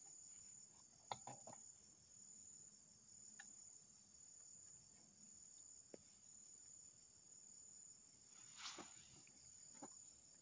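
Faint, steady high-pitched chirring of insects in the surrounding forest, with a few faint clicks scattered through it and a brief soft swell of noise near the end.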